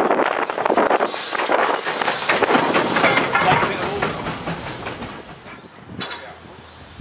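Small saddle-tank steam locomotive passing close at low speed: hissing steam with many quick knocks from its wheels and motion. It fades after about five seconds as it moves away, with one sharp knock near the end.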